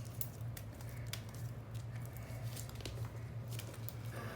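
Freshly made glue-and-contact-solution slime being kneaded by hand: soft, irregular sticky clicks and squishes as it pulls off the fingers. It is still sticky and not yet fully set.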